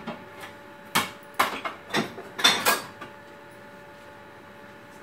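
Metal spoon scraping and knocking against the side of a stainless steel pot of thick cooked vegetables: four or five short strokes in quick succession, stopping about three seconds in.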